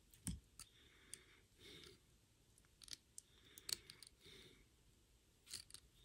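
Faint, irregular small clicks and ticks of steel needle-nose pliers working the metal tabs of a small switch, bending them back inward.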